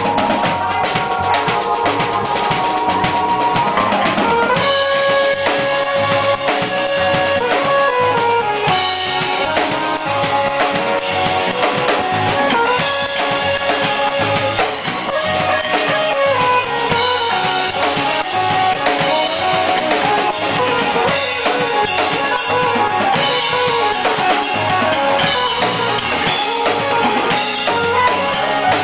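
Live band playing an instrumental passage: a drum kit keeps a steady beat with kick and snare under a sustained, sliding melodic lead line.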